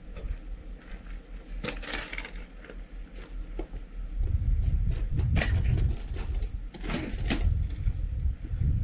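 Crunching scuffs of footsteps on a gravel driveway, a few sharp ones standing out. From about four seconds in, low gusty rumbling of wind buffeting the porch camera's microphone.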